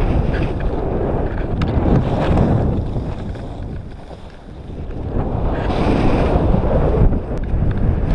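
Wind rushing over an action camera's microphone during a downhill ski run, mixed with the hiss of skis sliding on snow. The rush dies down for a moment about halfway through, then builds again.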